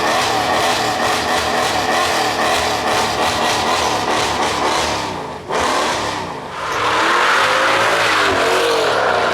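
Mercedes-AMG V8 with a loud exhaust under hard acceleration. The engine note cuts off sharply for a moment about five and a half seconds in, then sweeps up and down through the revs as it gets louder.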